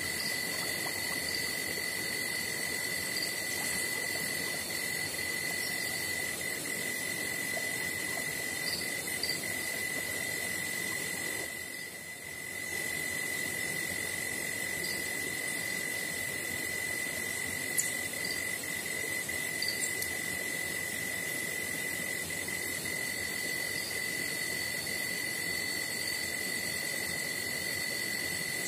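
Steady chorus of insects, a continuous high trill with a fainter, higher trill coming and going over it and a few short chirps. It drops briefly about twelve seconds in.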